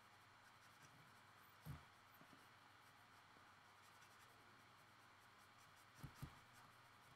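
Faint strokes of a Copic marker's nib on sketchbook paper, with a soft thud about two seconds in and two more close together near the end.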